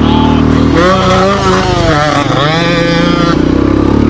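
Motorcycle engine running hard while being ridden over a grass track, its pitch steady at first and then rising and falling repeatedly as the throttle is worked on and off.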